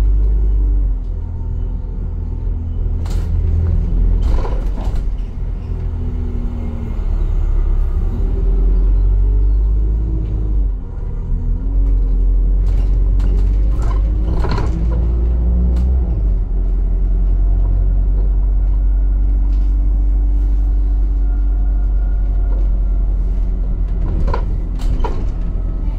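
Alexander Dennis Enviro400 double-decker bus on the move, heard on board: a steady low engine rumble, with a whine that rises and falls in pitch as the bus speeds up and slows. Short rattles or knocks come through a few times.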